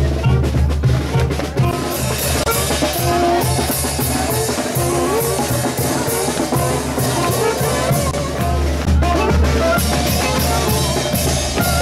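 Tamborazo band playing a lively dance tune: a steady tambora bass-drum beat with cymbal strokes under saxophone and brass melody lines. The cymbal strokes come in about two seconds in.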